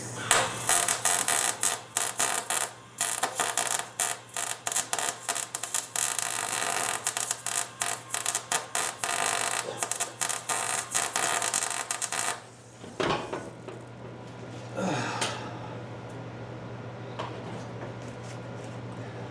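MIG welder arc crackling and sizzling for about twelve seconds, welding a nut onto a broken, rusted bolt stub, then stopping abruptly. A couple of brief scraping noises follow, over a steady low electrical hum.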